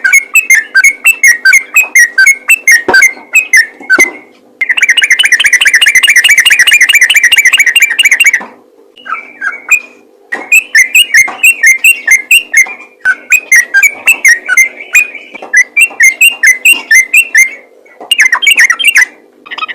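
Yellow-vented bulbul singing loud, rapid runs of chattering notes. About five seconds in, a dense continuous trill lasts around four seconds, and after short breaks the quick note-strings resume.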